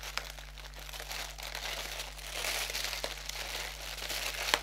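Wrapping being rummaged through and crinkled while items are taken out of a package, a continuous crackly rustle with a sharp click near the end.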